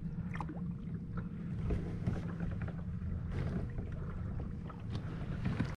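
Wind rumbling on the microphone over a kayak on open water, with faint scattered knocks and splashes.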